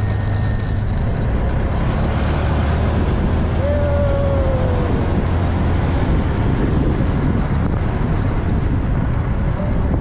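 A road vehicle running steadily on the move, with a constant low rumble and wind noise on the microphone.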